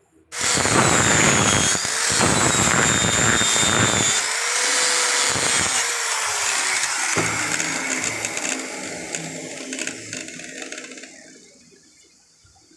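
Angle grinder starting suddenly and running with a high whine as its disc grinds and polishes the steel blade of old tin snips down to bare metal. The motor's pitch shifts under load, and the sound dies away over the last few seconds.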